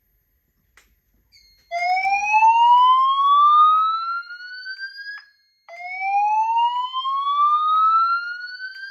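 EST2 whoop evacuation tone played through EST Genesis speaker strobes: two long slow upward sweeps, each about three and a half seconds. The first starts about two seconds in, and the second starts just after the first ends.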